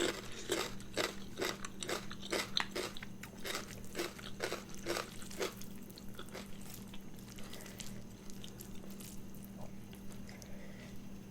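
Close-miked chewing of crunchy food, about two crunches a second, fading to softer chewing about halfway through, over a steady low electrical hum.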